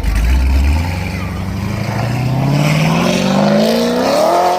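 Car engine accelerating: a deep rumble, then a pitch that climbs steadily for about three and a half seconds as the revs rise.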